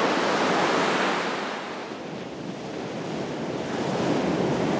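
Gulf of Mexico surf washing on the beach, with wind buffeting the microphone. The wash eases off about two seconds in and builds up again near the end.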